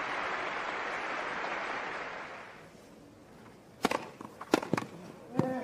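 Crowd applause on a tennis court fading out over the first half, then, after a short lull, a point begins: about four sharp tennis ball impacts, starting with the serve. A short pitched vocal sound, likely a player's grunt, comes with the last stroke near the end.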